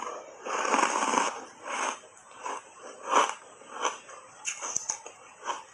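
Close-up chewing of a mouthful of hard ice coated thickly in matcha powder: a run of short crisp crunches at roughly one to two a second, the loudest about a second in and again about three seconds in.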